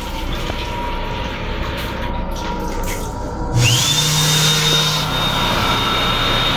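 Water from the sink faucet running into the basin, then about halfway through the built-in hand dryer of the same unit starts with a rush of air and a motor whine that rises quickly and then holds steady.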